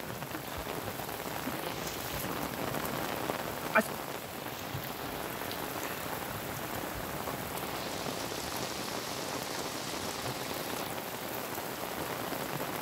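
Steady hiss of heavy rain falling, together with muddy flash-flood water running over a dirt road. A single short click comes a little under four seconds in.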